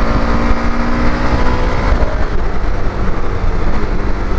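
KTM 1290 Super Adventure S V-twin engine running at speed on the road, with heavy wind rush. The steady engine note fades about a second and a half in, leaving mostly wind noise.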